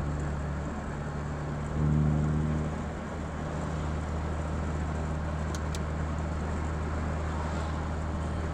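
Honda F23A4 2.3-litre four-cylinder engine with a cold-air intake, headers and cat-back exhaust, heard from inside the car, running steadily; it gets louder for about a second near two seconds in, then settles back to a steady drone. Two faint ticks come about halfway through.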